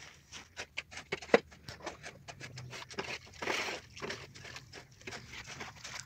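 A steel shovel stirring cement and red colour powder into water in a metal mixing pan: quick scraping and wet slapping strokes, with one sharp knock about a second in.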